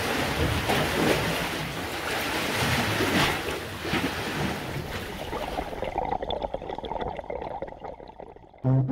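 Ocean waves surging and churning into a narrow rocky lava-rock pool, a rough, rushing wash of whitewater. About six seconds in the sound turns quieter and muffled, and just before the end a steady low musical note starts.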